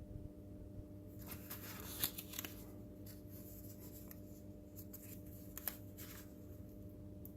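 Hands handling small parts and paper: a stretch of crinkly rustling and scraping about a second in, then a few light sharp clicks, under a steady faint hum.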